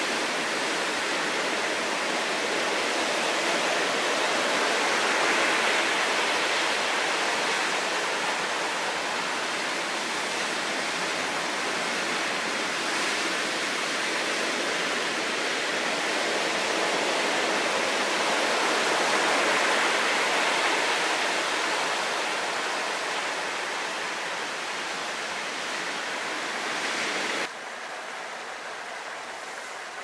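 Heavy typhoon surf breaking and churning on a rocky shore: a dense, steady rush of water noise that swells twice, then drops suddenly to a quieter wash of surf about two seconds before the end.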